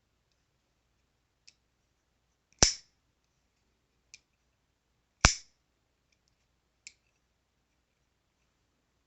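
Boker Kalashnikov automatic knife firing open twice, each time a sharp loud snap of the spring-driven blade, about two and a half seconds apart, with fainter clicks between them.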